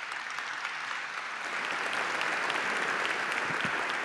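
Audience applauding: a dense patter of many hands clapping that swells over the first couple of seconds and then holds steady.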